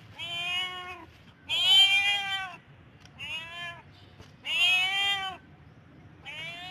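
A cat meowing over and over: about five drawn-out, pitched meows, each under a second long, spaced roughly a second and a half apart.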